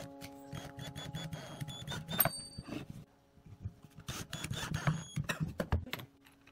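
Cordless drill driving a screw into a pine block in short bursts, with a busy run of clicks and knocks and a few sharp metallic clinks about two seconds in.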